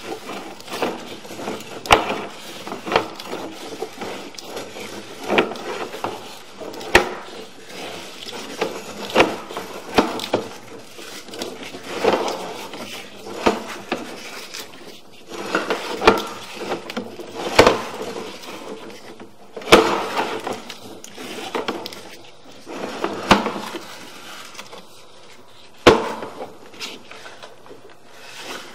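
Sewer inspection camera's push cable being fed by hand down a drain line: irregular knocks and clatters about every one to two seconds.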